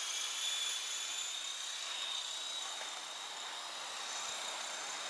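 Small electric coaxial RC helicopter flying: a steady high-pitched whine from its electric motors and twin rotors, wavering a little in pitch.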